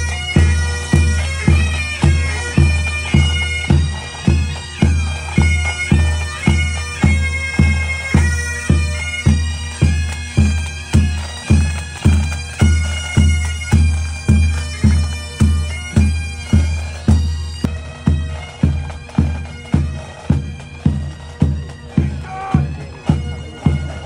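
Military pipe band playing a march: bagpipes with their drones and melody over a steady drum beat, about two beats a second.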